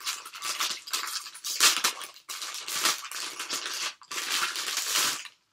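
Crinkly foil wrapper of a blind-box mystery figure being handled and pulled open, in a run of irregular crackling bursts.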